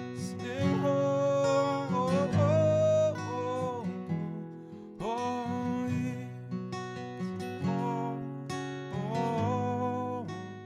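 Worship band music with a strummed acoustic guitar and a held, gliding melody line over it.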